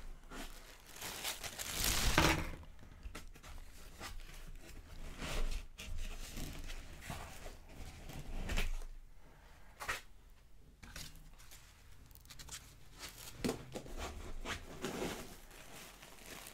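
Packing foam being pulled and lifted out of a cardboard box, with plastic wrapping crinkling as the wrapped statue pieces are handled. The rustles and scrapes come irregularly, the loudest about two seconds in.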